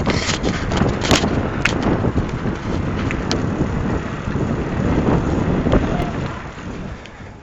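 Wind buffeting a phone's microphone while cycling, a steady rumbling rush with a few sharp clicks and rattles, easing off near the end.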